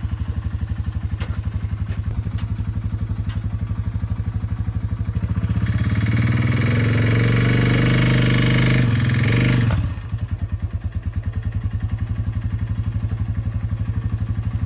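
Honda FourTrax 300 ATV's single-cylinder four-stroke engine idling with an even putt-putt, revved up for about four seconds from around the middle, then dropping back to idle.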